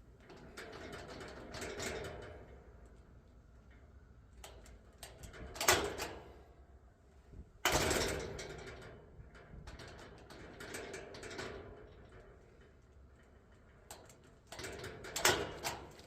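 A gate door and its mechanical lock being worked: a string of metallic clacks and latch clicks, with sharp knocks about six and fifteen seconds in and a sudden loud bang near eight seconds that dies away over about a second.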